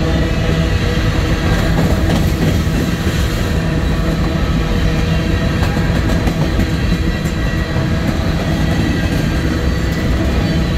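Covered hopper cars of a freight train rolling past: a loud, steady rumble of steel wheels on rail, with a few sharp clacks as the wheels pass over the track.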